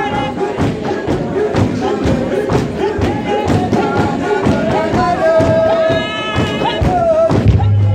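Church singing with a steady thumping beat: voices carrying a melody, one note held for about a second just past the middle.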